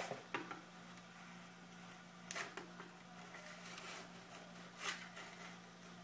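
A few short, faint scrapes and clicks of a small screwdriver prying under a chrome emblem on a scooter's body panel, over a steady low hum.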